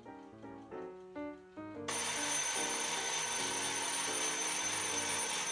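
Kitchen timer bell ringing continuously for about three and a half seconds, starting about two seconds in: the cooking time is up. Soft plucked-guitar background music plays under it.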